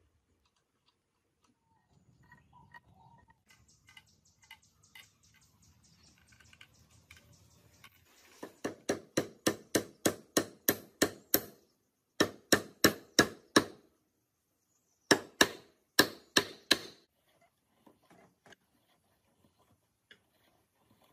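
Rapid, evenly spaced knocks, about five a second, in three runs of a few seconds each, after a stretch of fainter ticking.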